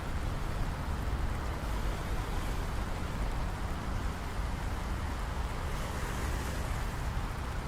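Rainy downtown street ambience: steady rain hiss mixed with the low rumble of passing traffic.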